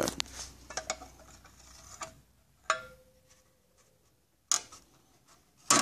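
Scattered clicks and metallic clanks from handling the amplifier's sheet-metal case and lid. One clank about three seconds in rings briefly, and the loudest knocks come near the end.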